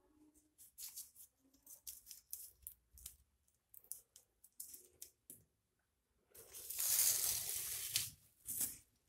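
A thin paint-smeared sheet being crinkled and crumpled into a ball by hand. Scattered short crackles come first, then a louder run of crumpling for about a second and a half near the end.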